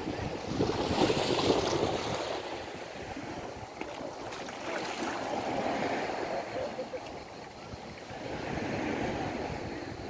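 Sea waves washing against a concrete pier and shore, with wind buffeting the microphone. The wash swells louder about a second in and again near the end.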